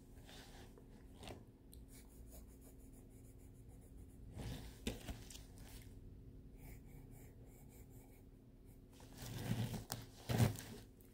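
Pencil scratching lightly on the paper of a spiral sketchbook. A brief rustle about halfway, and louder rustling and bumps near the end as the sketchbook and its pages are handled on the table.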